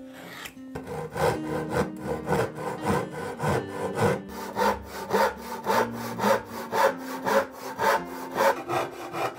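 Backsaw crosscutting a wooden board by hand, with steady rasping strokes about two a second starting about a second in. Soft background music plays underneath.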